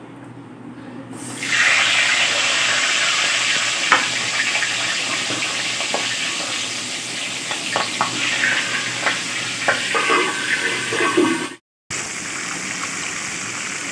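Catla fish-head pieces frying in hot oil in a wok: loud sizzling that jumps up about a second and a half in, with scattered pops and crackles as the fish heads burst in the oil.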